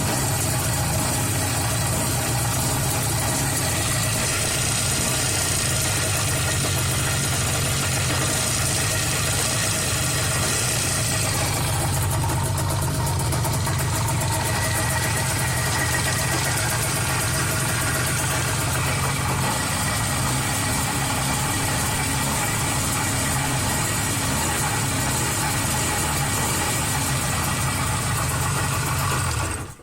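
IZh Jupiter 5 two-cylinder two-stroke motorcycle engine idling steadily, freshly rebuilt with a new piston group.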